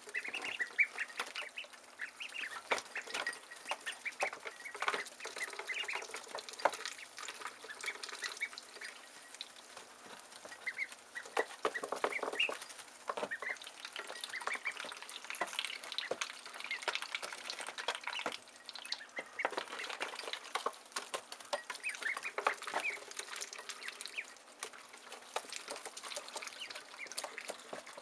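A brood of ducklings peeping constantly in short, high calls while they feed on greens, with many sharp clicks mixed among the peeps.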